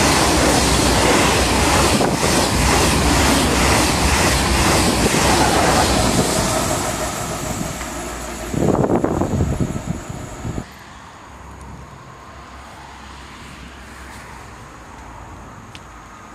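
TGV Duplex high-speed trainset passing at speed, with wheels clicking in a rhythm over the rails and rushing air; the noise fades as the rear power car goes by. About nine seconds in, a gust buffets the microphone for a couple of seconds. The noise then drops abruptly to a faint steady background.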